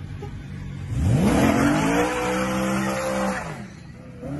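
A BMW coupe launching hard: about a second in the engine revs sharply up and holds high revs while the tyres squeal as they spin, then the sound drops away near the end as the car pulls off.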